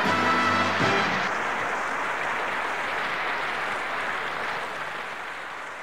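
A brief bit of music in the first second gives way to a studio audience applauding, the applause fading gradually.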